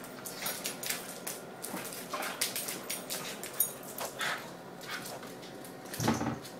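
Standard schnauzer giving several short whimpers amid scattered clicks, with a louder, lower sound about six seconds in.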